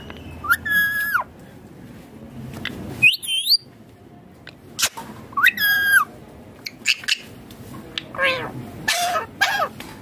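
Indian ringneck parakeet calling: a series of shrill squawks with some upward-gliding notes, two longer calls early and near the middle, then a quicker run of short calls near the end.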